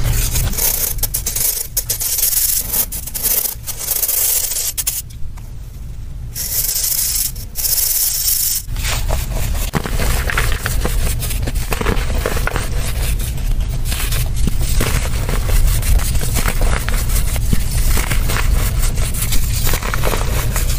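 Fine dry powder being sifted through a plastic sieve shaken over a plastic basin: a continuous gritty scraping and rubbing as the sieve rim drags against the basin and the powder pours through the mesh, quieter for a few seconds midway.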